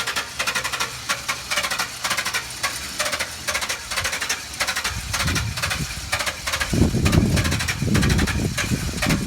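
Chevrolet Express 3500 van engine being cranked over by the starter motor, an even rhythmic chugging of about four to five beats a second that never catches and runs. A deeper rumble builds under it in the second half. This is a no-start: the engine cranks but won't fire.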